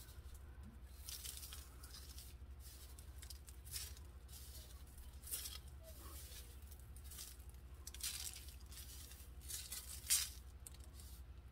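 Faint rustling and scraping from hands working glitter onto a tumbler, in short soft bursts every second or two, over a steady low hum.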